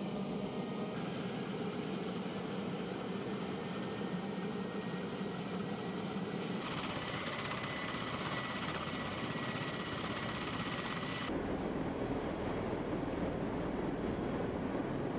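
MV-22 Osprey tiltrotor running on the ground: its Rolls-Royce AE 1107C turboshaft engines give a steady whine over the heavy noise of the turning proprotors. The sound shifts abruptly about a second in, again around seven seconds and again around eleven seconds, and the last part has more low rumble.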